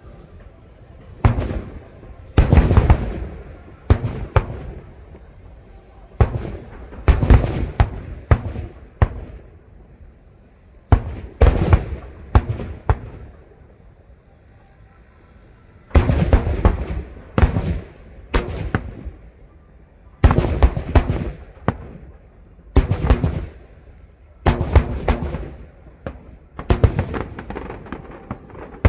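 Aerial fireworks bursting in clusters of sharp bangs, each followed by crackling, every second or two, with a lull of a few seconds about halfway through.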